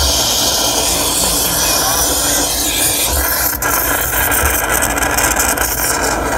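Handheld gas torch flame hissing steadily as it is played over a solidly iced-up refrigeration evaporator section to melt the ice off.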